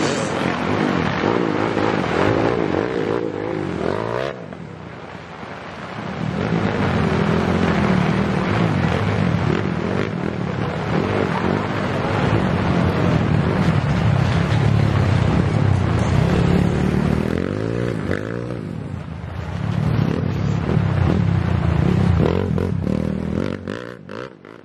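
Several dirt bike engines revving hard as the bikes race past on a muddy grasstrack course, the pitch rising and falling with each throttle change. The engines drop back for a couple of seconds about four seconds in, then fade out at the end.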